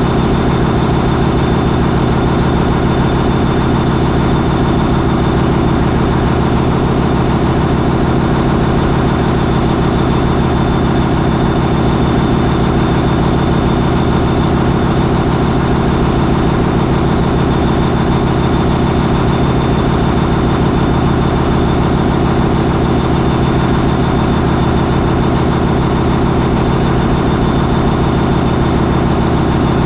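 MAN 20V28/33D STC twenty-cylinder V diesel main engine of a high-speed ferry running steadily at about 800 RPM, with a thin high whine over the engine note.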